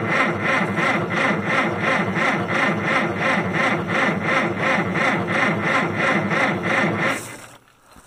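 Farmall 400's starter cranking the gasoline engine slowly and hard, in an even rhythm of about three to four compression strokes a second, without it firing. The cranking stops about seven seconds in. It is turning too slowly to start: the owner blames a weak battery and says a gas tractor that turns that hard means something isn't right.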